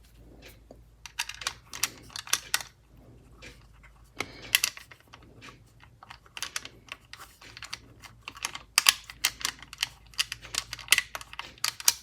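Irregular light clicks and taps of small parts and tools being handled at a micro metal lathe, as screws are swapped for hand-turned knobs on the tailstock, over a faint steady low hum.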